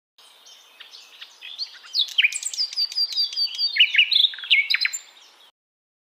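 Male indigo bunting singing: a run of high, sharp whistled notes, many given in pairs or quick repeated series. It grows louder about two seconds in, then stops abruptly.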